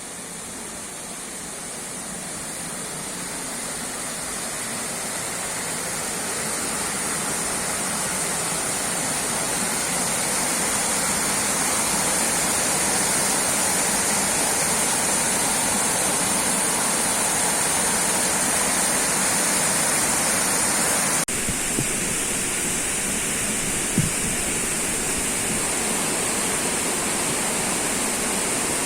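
Steady rush of river water tumbling over a small waterfall. It grows louder over the first dozen seconds, then holds steady, with an abrupt change about 21 seconds in and a single short knock a few seconds later.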